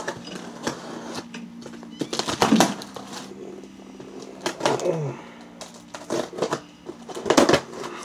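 Cardboard Priority Mail shipping box being handled and torn open: rustling and knocking, with three loud short tearing noises a couple of seconds apart.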